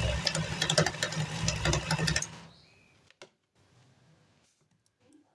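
Small electric motor of a homemade mixer grinder running with a low hum and rattling clicks, cutting off about two seconds in.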